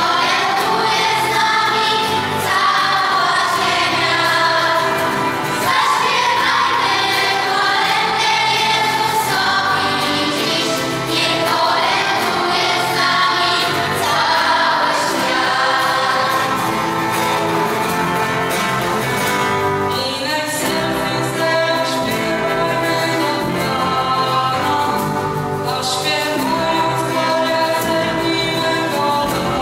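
A choir of children and teenagers singing a Polish Christmas carol (kolęda), led by a female soloist singing into a microphone.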